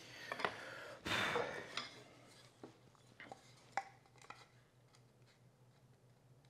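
A hand plane takes a short rasping stroke along the cleat's end on a wooden shooting board, the loudest sound, about a second in. Several light clicks and knocks of wood and the metal plane being handled and set down follow.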